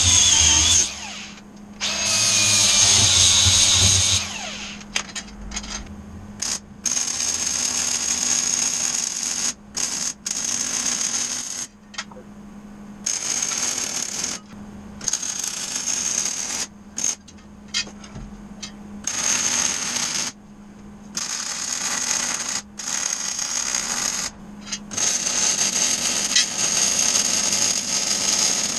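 Electric arc welding on a steel strut frame: a run of crackling welding bursts, each one to three seconds long, that start and stop abruptly with short gaps between, over a steady low hum.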